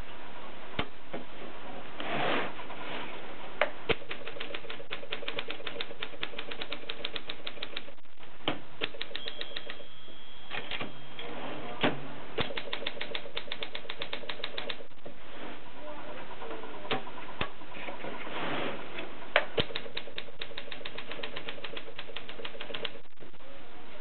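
Olympia SM 2 portable manual typewriter being typed on: rapid runs of key strikes clacking against the platen, in three long bursts with short pauses between them.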